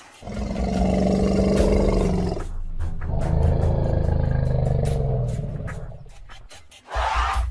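Two long, deep animal roars, each lasting two to three seconds, one after the other.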